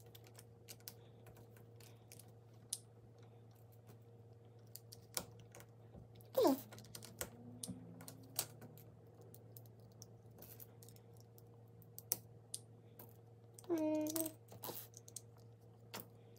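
Plastic LEGO pieces clicking and rattling as they are handled and snapped together, in scattered light clicks over a faint steady hum. A short falling pitched sound comes about six seconds in, and another brief pitched sound near the end.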